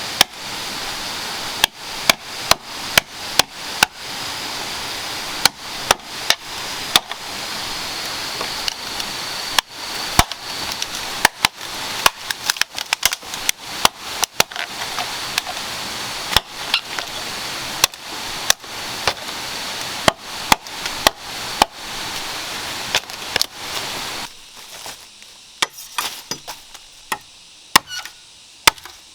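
Bamboo being chopped: repeated sharp strikes, irregular, one or two a second, over a steady hiss that drops away suddenly near the end, leaving fainter strikes.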